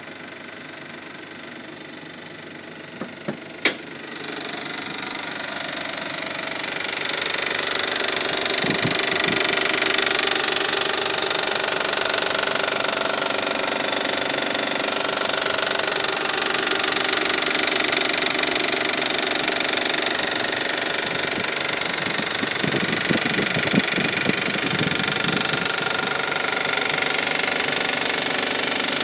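2002 Isuzu Trooper engine running with a ticking, knocking noise that the owner has not traced. A couple of sharp clicks come about three and a half seconds in. The engine sound then grows louder over the next few seconds and holds steady.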